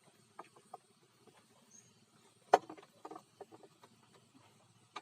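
A few faint clicks and taps, then one sharp knock about two and a half seconds in followed by a short run of lighter taps.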